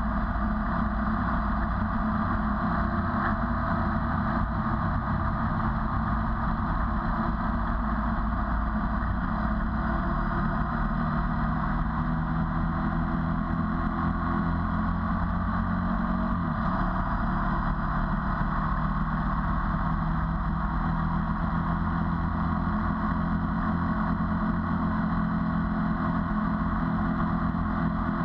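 Ducati 848's L-twin engine running steadily under way, heard from a GoPro mounted on the bike, with wind rush. The engine note dips and recovers briefly about sixteen seconds in.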